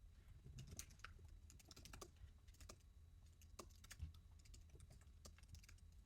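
Faint typing on a computer keyboard: scattered, irregular keystrokes over a low steady hum.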